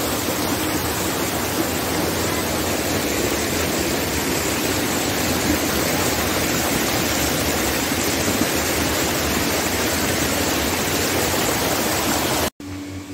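Steady rush of flowing water from the hot spring's stream, loud and even, cutting off suddenly near the end.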